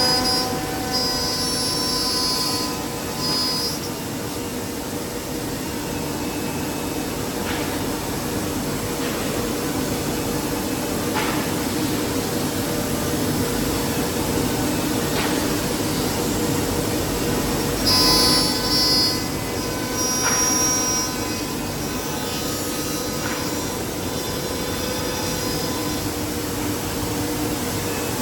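Woodmaster Pro-Master-T4 5-axis CNC router machining wood: a steady machine hum, with high-pitched whines near the start and again about two-thirds of the way through, and a few faint clicks.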